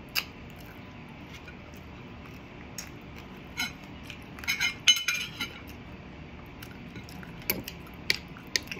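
Cutlery clinking against a plate during a meal: scattered sharp clinks, with a quick run of them about halfway through.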